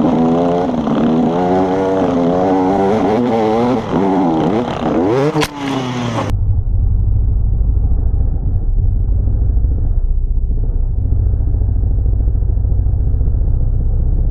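Husaberg dirt bike engine on the move, its pitch rising and falling again and again as the throttle is worked over rough ground, with one sharp rev near the end of it. About six seconds in the sound changes suddenly to a muffled, dull low rumble.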